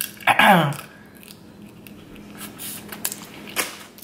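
A short falling vocal sound about a third of a second in, then scattered crisp clicks and cracks of king crab leg shell being picked and pulled apart by hand.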